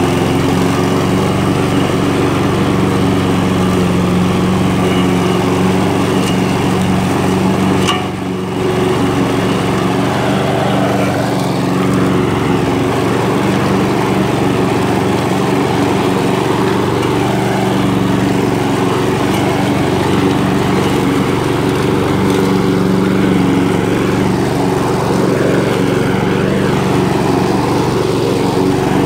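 Walk-behind gasoline rotary lawn mower engine running steadily under load while cutting grass, with one brief dip in level about eight seconds in.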